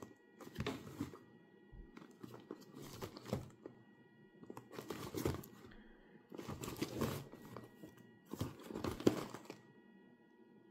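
Cardboard box handled and turned over in the hands: about five short bursts of rustling and scraping as the fingers shift their grip on it. A faint steady high tone hums behind throughout.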